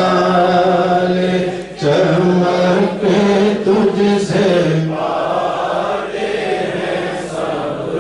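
Unaccompanied male chanting of an Islamic devotional recitation, in long held melodic phrases with a short break about two seconds in.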